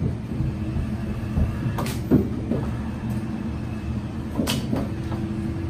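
Hydraulic pipe-bursting machine at work, with a steady low engine-and-pump hum. Over it come a few sharp metallic clanks: two close together about two seconds in and two more a little past four and a half seconds.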